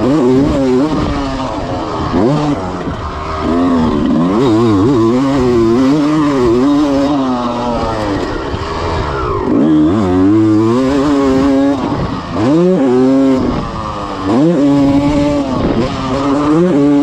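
A freshly rebuilt 1996 Honda CR250's two-stroke single-cylinder engine being ridden hard: its pitch climbs and falls over and over as the throttle is opened and chopped, with sharp drop-offs about two, nine and a half, and twelve and a half seconds in before it climbs again.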